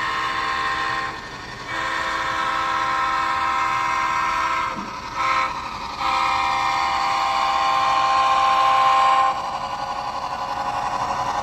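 Model Seaboard Coast Line diesel locomotive's sound-equipped horn blowing the grade-crossing signal as it reaches the crossing: a long blast, a short one and a final long one, after a first blast at the start. A steady running noise continues underneath.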